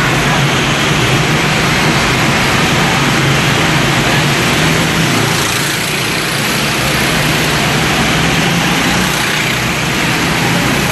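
Several go-karts running laps around an indoor track, a steady engine drone filling the enclosed hall, dipping slightly for a moment about halfway through.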